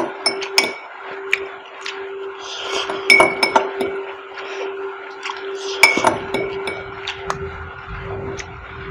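Metal fork clinking and scraping against a small cut-glass bowl while noodles are eaten, in scattered ringing clinks that bunch up about three seconds in and again near six seconds. A steady low hum runs underneath.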